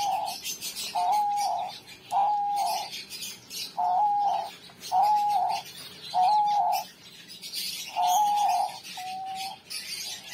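Male diamond dove cooing in courtship display: about eight short coos, each a quick rise onto a level note, roughly one a second with a couple of longer gaps. This calling with the tail fanned marks the bird as a male courting the female.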